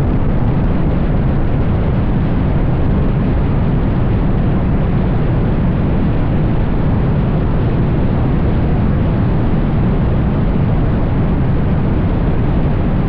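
Chevrolet Camaro on the move: a loud, steady low rumble of engine, exhaust and road noise that does not change through the stretch.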